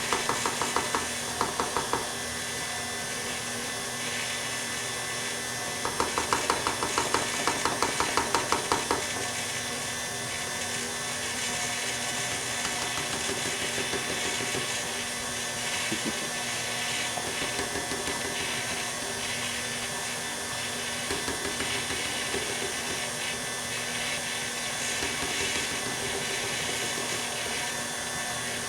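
Electric mixer running steadily, beating thick cookie dough as flour is slowly added. Two spells of rhythmic clicking, about five a second, come near the start and again from about six to nine seconds in.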